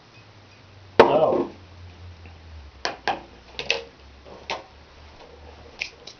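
Kitchen items set down on a laminate tabletop: one sharp knock with a short ringing tail about a second in, likely the Worcestershire sauce bottle, then several light clicks and taps of plastic measuring spoons and small lids being put down.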